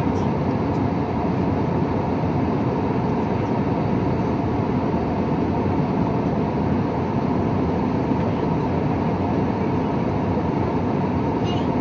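Steady cabin noise inside an Airbus A320neo airliner in flight: the constant low rumble of the engines and the air rushing past, with a faint steady hum.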